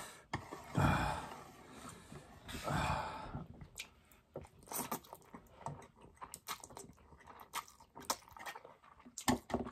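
A mouthful of spicy instant noodles being slurped and chewed: two soft slurps in the first few seconds, then a long run of small clicky chewing sounds.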